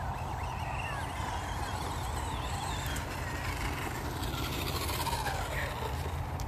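Losi desert truck RC car driving on dirt, its electric motor whining up and down in pitch as it speeds up and slows, with a falling whine near the end as it slows. A steady low rumble runs underneath.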